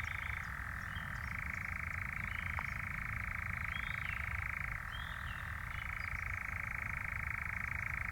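European nightjar churring: a continuous, machine-like trill that shifts briefly lower twice, about half a second in and again about five seconds in.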